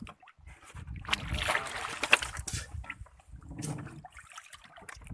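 Water splashing and sloshing in irregular bursts, busiest from about a second in to past the middle, with a shorter splash near the end.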